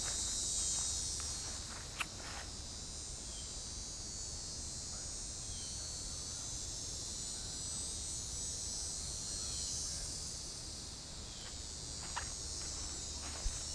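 Steady high-pitched drone of an insect chorus, with a low rumble underneath and a sharp click about two seconds in.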